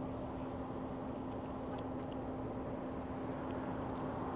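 Steady hum and hiss inside a car with a steady low tone that stops about halfway through, and a few faint clicks of chewing.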